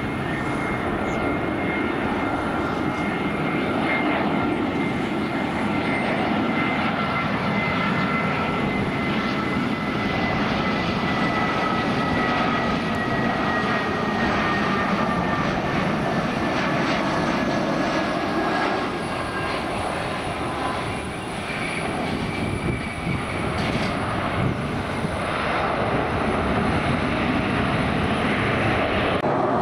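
Airliner engines running, a steady rush with two high whining tones that slowly fall in pitch over about twenty seconds.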